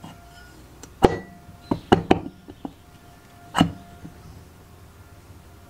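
A handful of sharp knocks and clinks from a Robin EC17 two-stroke's aluminium crankcase half, crankshaft and connecting rod being handled and shifted by hand. The loudest come about a second in and about three and a half seconds in, some with a short metallic ring.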